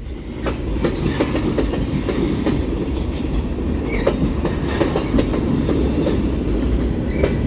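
Union Pacific freight train's cars rolling past at close range: a steady rumble of steel wheels on the rails, with scattered clicks and knocks from the wheels.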